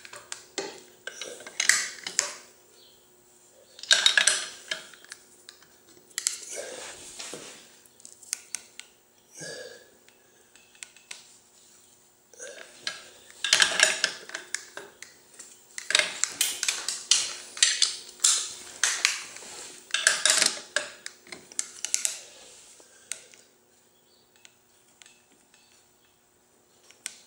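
Steel wrench, socket and rotor-holding bar clinking and knocking against the bolt and rotor, mixed with a man's strained grunts and breaths, in irregular bursts with pauses between. These are the sounds of a motorcycle's alternator rotor bolt being pulled up to its final torque.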